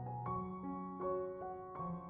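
Soft background piano music, with held notes changing about every half second.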